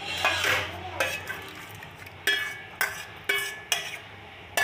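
A metal ladle stirring a pot of vermicelli payasam with added sago and knocking against the metal pot, giving about six ringing clinks that come closer together in the second half.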